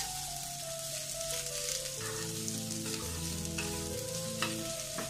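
Chopped onion and green chilli sizzling in hot oil in a small kadai, stirred with a steel spoon that clicks against the pan a few times in the second half. The onion is being sautéed only until it softens, not browned.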